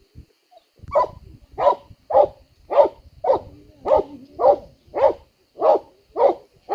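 A dog barking in a steady run of about eleven barks, under two a second, starting about a second in.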